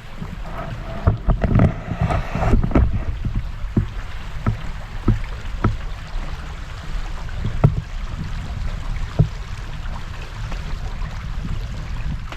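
Footsteps on the boards of a suspension footbridge: a walking run of knocks, with a cluster of louder clatter about one to three seconds in, over a low rumble of wind on the microphone.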